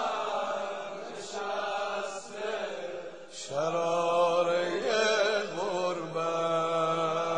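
A voice chanting a Persian mourning lament (noha) in long held notes that bend in pitch, with a short break about three seconds in before the next phrase begins.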